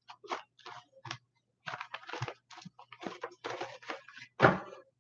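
Papers rustling and being handled on a desk in quick irregular bursts, with a louder bump about four and a half seconds in, over a faint steady low hum.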